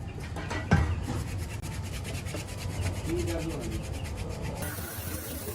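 Rapid, even abrasive scraping, about eight strokes a second, like a file or abrasive worked over a metal casting. It stops abruptly a little over four and a half seconds in.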